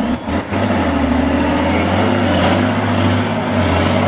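Truck trial competition truck's engine working hard under load. It comes in suddenly and loud with a few knocks, then holds a steady, even note.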